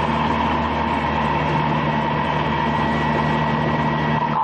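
Military vehicle's engine and road noise heard from inside the moving cab, running steadily at an even pitch.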